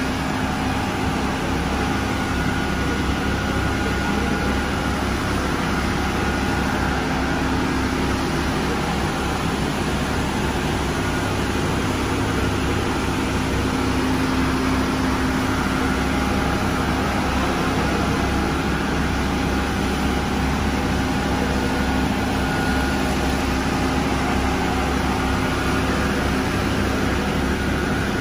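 Walk-behind floor scrubber-dryer running steadily: an even motor and suction noise with a few steady tones held over it, at constant loudness throughout.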